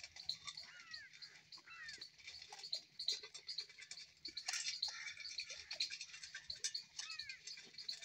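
Many small birds chirping continuously, with a short falling call repeated about once a second at the start and again near the end.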